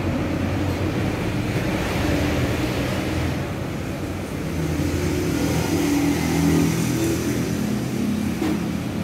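Steady engine rumble of road traffic, swelling as a vehicle passes about six to seven seconds in.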